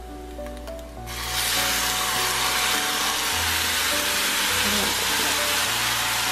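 Soy-based sauce poured into a hot frying pan of fried Spam slices, hitting the pan about a second in and sizzling loudly and steadily.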